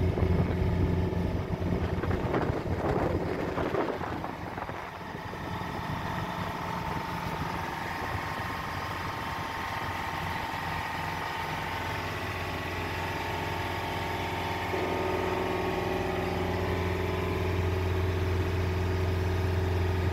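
Motorboat's diesel engine running steadily under way, a continuous low drone. It gets a little louder and gains a higher steady note about fifteen seconds in.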